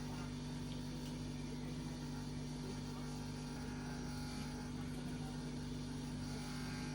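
Steady low hum at one fixed pitch, even in level and unchanging throughout.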